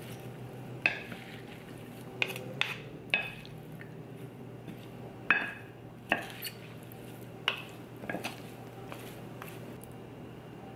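Wooden spoons tossing a chopped cactus salad in a ceramic bowl, knocking against the bowl with sharp, briefly ringing clacks at irregular intervals that stop about eight seconds in.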